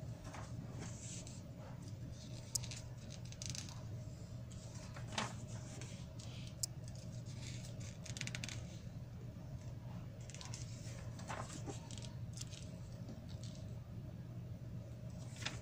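Glossy magazine pages being handled and turned: brief paper rustles and small clicks scattered throughout, over a steady low hum.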